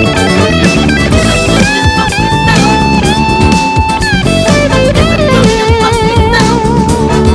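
Funk music led by an electric guitar playing long held lead notes over a full backing. The notes slide in pitch, and in the second half a held note wavers with wide vibrato.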